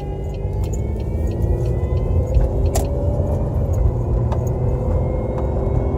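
A car pulling away from a standstill, heard from inside the cabin: a low road and engine rumble that grows as it speeds up, with a thin whine climbing slowly in pitch. The whine is the unexplained hum the owner hears when accelerating.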